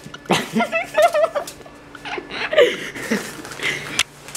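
Children's voices giggling and talking indistinctly, over a faint steady hum, with one sharp click about four seconds in.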